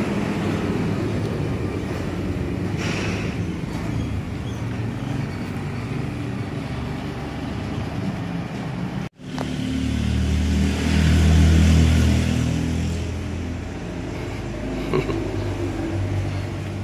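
Road traffic: vehicle engines running with a low rumble. The sound cuts out briefly about nine seconds in, then a vehicle's engine rumble swells louder and fades over the next few seconds.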